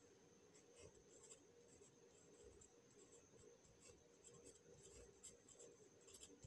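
Faint scratching of a pencil writing a word by hand on a paper worksheet.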